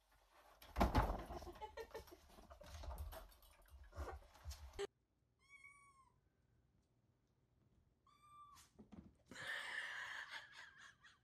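A kitten meowing: one high call about halfway through and a shorter one about three seconds later. Before them, a few seconds of rustling and thumps are the loudest part, and a burst of scuffling follows near the end.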